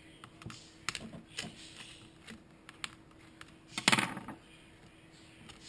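Light scattered clicks and taps of a plastic model loader being handled and turned over, with one louder knock about four seconds in.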